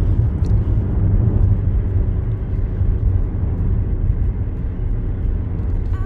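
Steady low rumble of a Mazda car cruising at highway speed, heard from inside the cabin: mostly tyre and road noise.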